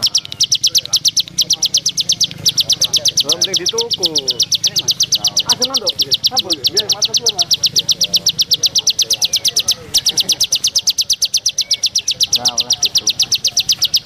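A small songbird repeating a rapid, even run of high pulsed notes, broken only briefly a couple of times, over fainter, lower swooping chirps and whistles from other birds.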